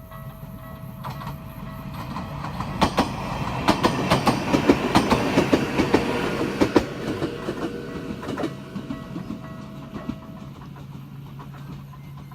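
Ueda Electric Railway 1000 series electric train passing over a level crossing, its wheels clattering over the rail joints, swelling to a peak in the middle and then fading. Underneath, the crossing's electronic bell rings steadily and stops near the end.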